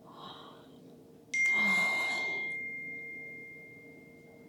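A sudden clink of tableware, about a second in, that rings on in one high tone and fades away over about three seconds, with a short breathy rush of air at the same moment.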